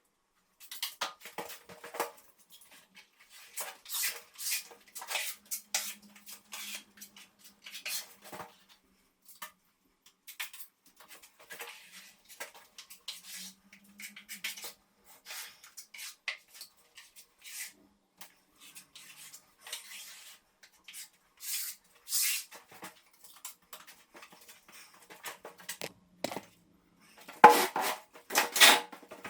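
Metal plastering spatula scraping and clinking as smoothing filler is worked onto the wall: irregular short scrapes and taps with gaps between them, the loudest cluster near the end.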